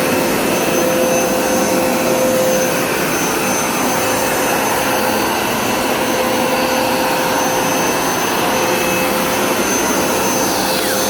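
Hoover Smartwash Pet Complete carpet cleaner running steadily, its motor giving a loud rushing noise with a steady whine on top.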